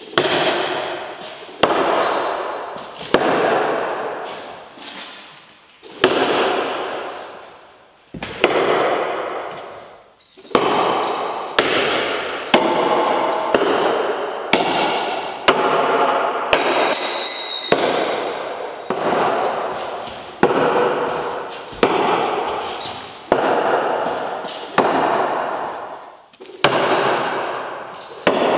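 Steel throwing needles thrown one after another into wooden target boards, each hit a sharp knock with a metallic ring that echoes through the large concrete hall, coming every second or two.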